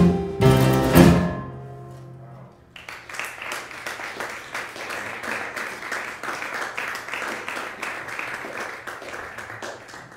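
An Arabic music ensemble with oud, qanun, piano, bass, drums and cello plays its last chords, which ring out and die away within the first two seconds. The audience then applauds steadily, the applause cutting off sharply near the end.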